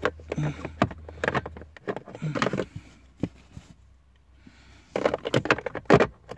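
Hard plastic trim knocking and clicking as the cabin-filter cover under the dashboard is worked back into place by hand: scattered sharp knocks, a lull in the middle, then a dense flurry of them near the end.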